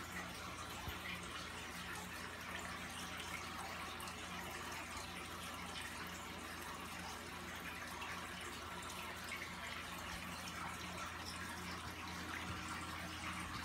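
Aquarium running: a steady bubbling and trickle of water from the filter and rising air bubbles, over a low steady hum.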